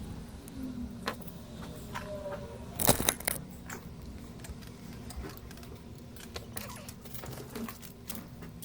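Small clicks and taps of tools handling a remote control's circuit board, with a cluster of louder clicks about three seconds in, over a steady low hum.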